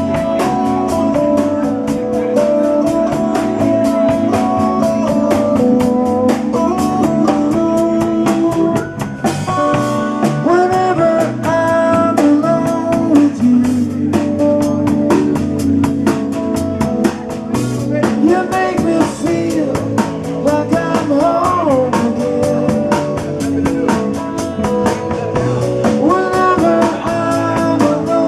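Live band playing a love song: guitar and drum kit keep a steady beat, and a sung melody comes in about nine seconds in.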